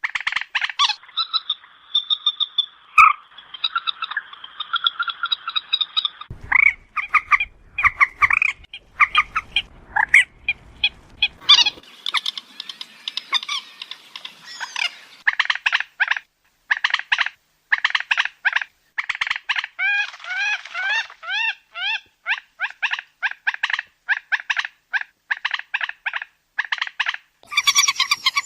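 Common moorhen calling: rapid series of short, croaking, clucking notes repeated in quick runs, with a few longer held notes and some curved chirping notes.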